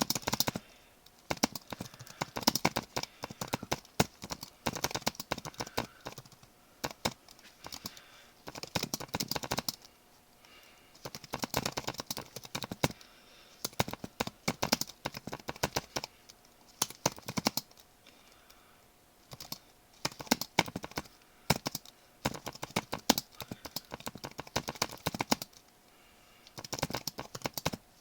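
Typing on a computer keyboard: runs of rapid key clicks lasting a few seconds each, broken by short pauses.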